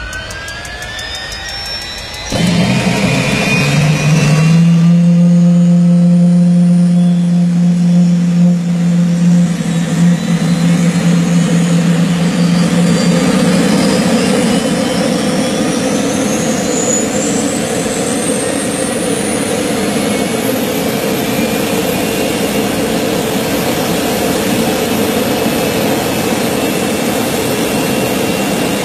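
Helicopter turbine engine in a motorcycle starting up: a rising starter whine, then about two seconds in a sudden jump in loudness as it lights off. It settles into a steady hum with a high whine that climbs further over several seconds as it spools up, then runs steadily with a jet-like whine.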